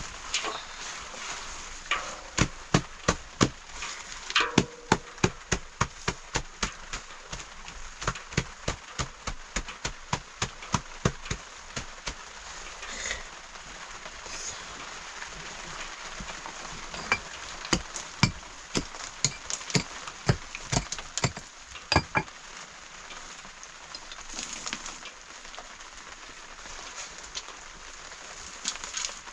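Two runs of sharp knocks, about two to three a second, the first about 2 seconds in and lasting some nine seconds, the second shorter, about 17 seconds in. A steady hiss of rain runs underneath.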